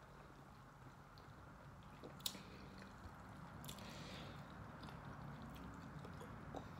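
Faint mouth sounds of sipping and swallowing from an iced drink. There is a single soft click about two seconds in, then a short rustle of ice and glass around four seconds as the glass is set down.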